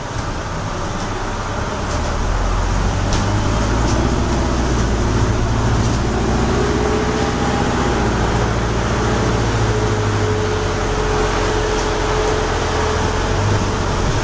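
Hybrid city bus heard from inside the passenger saloon while it drives: a low drivetrain rumble with road noise, growing louder over the first two seconds and then steady. A faint thin whine joins from about six seconds in.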